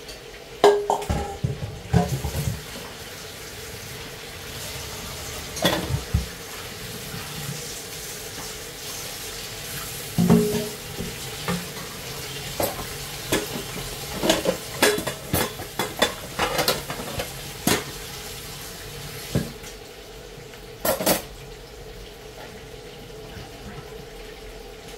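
Kitchen pots, dishes and utensils clattering: scattered clinks and knocks, about a dozen clusters, over a faint sizzle of food frying.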